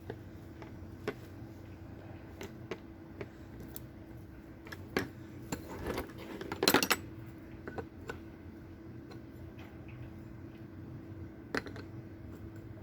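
A socket wrench clicking and clinking on the metal nut of a roller skate's truck as it is tightened: scattered irregular clicks and knocks, with a louder cluster about seven seconds in.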